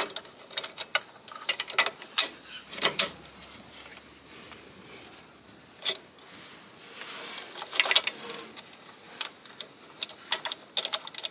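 Irregular metallic clicks, clinks and light knocks as a tip turbine fan and its V-clamp are handled and fitted against the cooling-air box. There is a short scraping rub about seven to eight seconds in.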